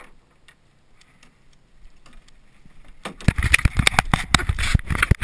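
A freshly netted chinook salmon thrashing in a landing net as it comes aboard a small fibreglass boat. About three seconds in, a loud, rapid run of splashes and knocks against the hull starts and goes on for about two seconds.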